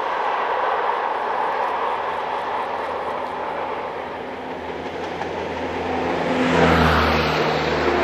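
BLS Ae 4/4 electric locomotive passing close with its passenger train: wheels on rails make a steady rumble that grows louder. A low hum from the locomotive rises with it about six and a half seconds in.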